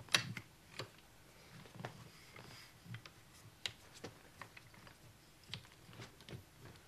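Irregular light clicks and taps of a camera tripod being handled as its legs are adjusted in height.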